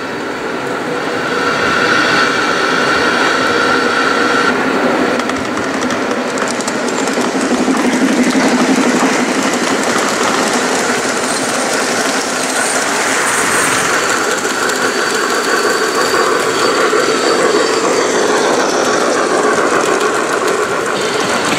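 1:32-scale (Gauge 1) model trains running along the layout's track: a steady rolling, running noise of the wheels on the rails and the trains' drive.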